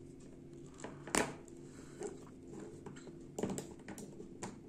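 Small plastic clicks and taps of an action figure's parts being handled, as a translucent orange energon axe piece is fitted into the hand of a Transformers R.E.D. Optimus Prime figure, with a sharper click about a second in and a few more later.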